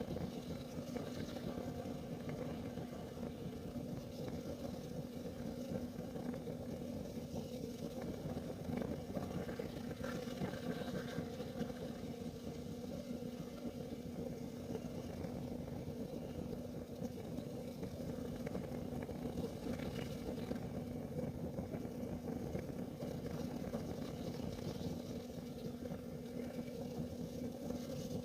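Kerosene heater burning steadily: an even low rumble with a constant hum, and a few faint ticks.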